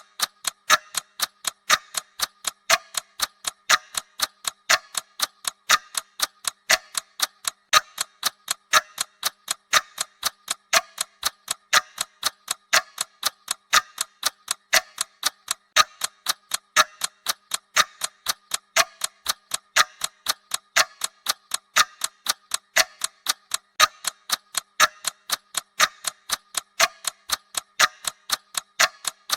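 Bomb countdown timer's ticking sound effect: sharp, even clicks several times a second, with a louder tick about once a second, steady and unchanging.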